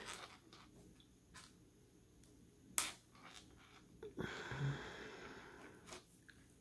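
Quiet handling of beadwork: a few light clicks, the sharpest a little under three seconds in, and a short rustle about four seconds in.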